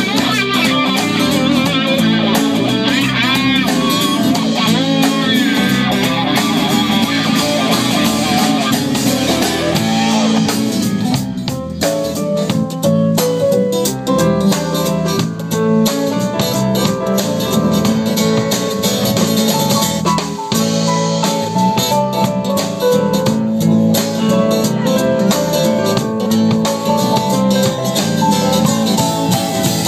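Live band playing an instrumental passage: guitar over bass and drums, the guitar notes bending and wavering for the first ten seconds or so, then moving in steadier stepped notes.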